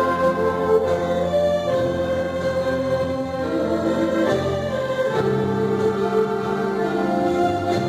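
Church orchestra playing an instrumental hymn, with sustained chords that change every second or so.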